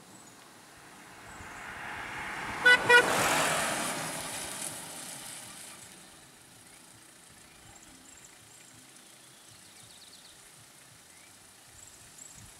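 A motor vehicle driving past close by, with two short toots of its horn about three seconds in as it passes.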